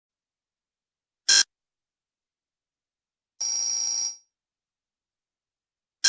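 Electric doorbell buzzing twice: a very short buzz a little over a second in, then a longer, quieter buzz of under a second about halfway through that fades out.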